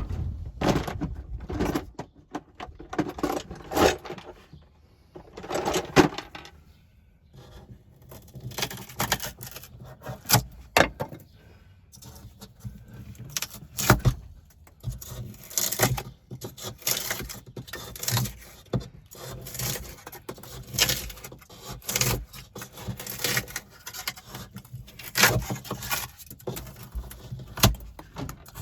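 Irregular clatter, knocks and scraping of tools and metal being handled, in uneven clusters every second or two.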